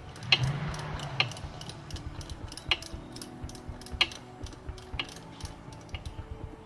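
Hand ratchet clicking in short, irregular strokes while loosening the connecting-rod lock nuts, with a louder noise from about a third of a second to just over a second in.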